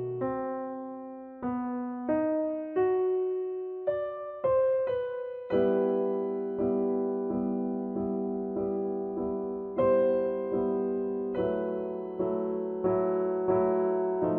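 Background music: slow, gentle solo piano, notes struck one at a time and ringing out. It starts as sparse single notes and fills out into fuller chords about halfway through.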